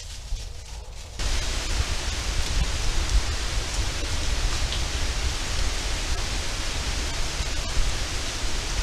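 Steady rain falling on the forest canopy and leaf litter, starting abruptly about a second in and holding even, with a low rumble underneath.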